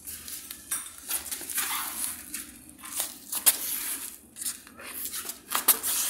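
Water splashing onto a stone-tiled floor around a toilet's base, in uneven surges with sharp spatters.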